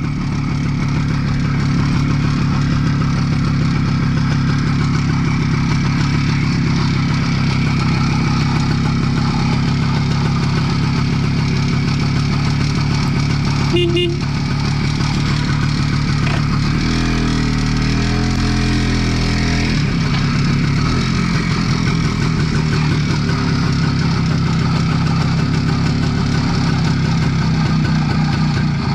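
IZh Planeta 4 motorcycle's single-cylinder two-stroke engine running steadily, its note changing for a few seconds a little past the middle.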